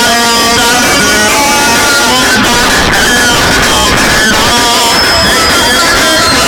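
Music with guitar played very loud through a car's sound system.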